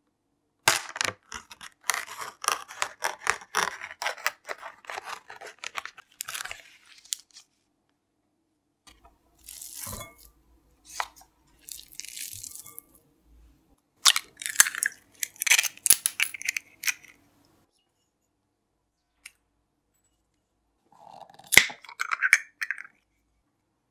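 Plastic film over a tray of ground beef being slit with a knife and peeled back, with a long run of crinkling and tearing crackles. Then soft, wet handling as minced beef is dropped by hand into a glass bowl. Near the end a bottle cap clicks open.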